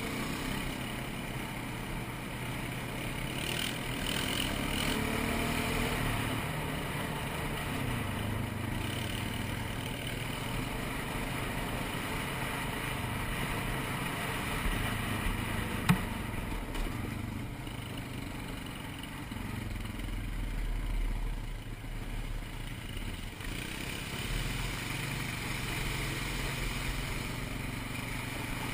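ATV engine running steadily as the quad is ridden along a trail, its pitch shifting a little with the throttle. A single sharp knock sounds about halfway through.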